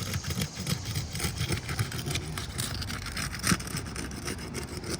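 A metal shingle-removal tool scraping and prying under an asphalt roof shingle in quick repeated strokes, breaking the shingle's adhesive seal, over a steady low rumble.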